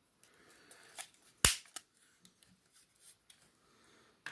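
Hard plastic parts of a G.I. Joe A.W.E. Striker toy vehicle clicking as they are fitted and handled, with one sharp snap about one and a half seconds in and a few lighter clicks around it.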